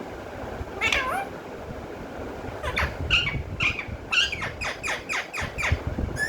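Pet parrot calling: one falling call about a second in, then from about three seconds in a rapid run of about a dozen short, falling calls, several a second.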